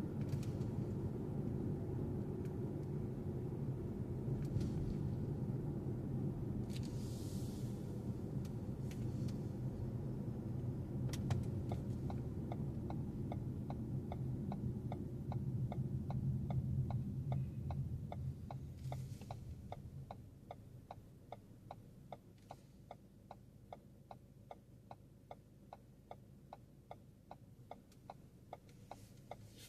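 Car interior: engine and road rumble while driving, dying away a little over halfway through as the car slows to a stop. From about a third of the way in, a turn-signal indicator ticks steadily and keeps on after the rumble fades.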